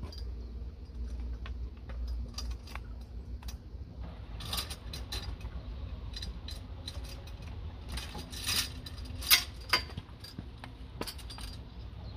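A bunch of keys jangling, with sharp metallic clicks as a lock is worked, thickest in the second half, with a few louder clicks about eight and nine seconds in.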